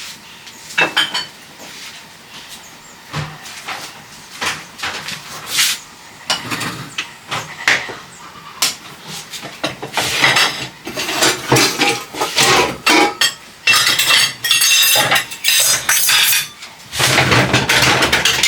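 Dishes and cutlery clinking and clattering as they are handled for washing up. A run of knocks and clinks grows busier and denser from about halfway through.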